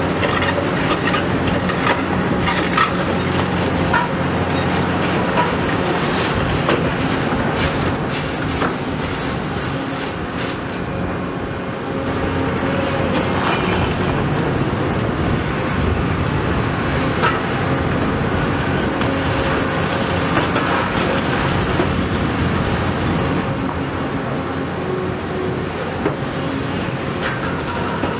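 CAT 336E hydraulic excavator's diesel engine running steadily under load while its demolition crusher jaw breaks a concrete wall, with crunching concrete and rubble clattering down in many sharp knocks, thickest in the first several seconds.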